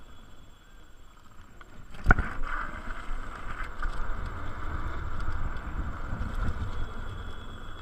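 Electric scooter riding along a tarmac path: steady motor and tyre noise with wind rumble on the microphone, and a single sharp knock about two seconds in, after which it runs louder.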